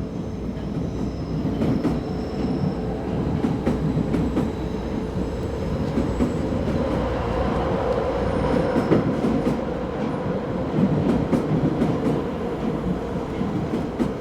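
Film sound effect of a heavy rolling rail car, like a train: a steady, loud low rumble with scattered metallic clacks and a faint held squealing tone.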